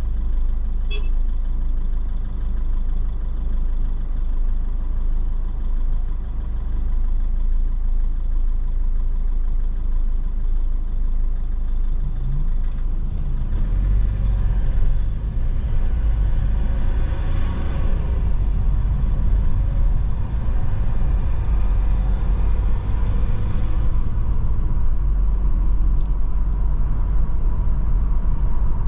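Car engine idling at a standstill in traffic, a steady low rumble. About halfway through, the car pulls away, and the engine and road noise grow louder and fuller as it drives on.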